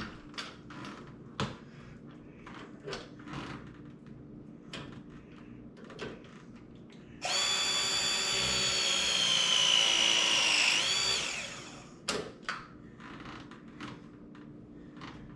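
Battery-powered ProPress crimping tool pressing a fitting onto a pipe: its motor whines for about four and a half seconds, the pitch sinking slowly under load, then dipping and rising briefly just before it cuts off. Light clicks and knocks of tools and pipe being handled come before and after it.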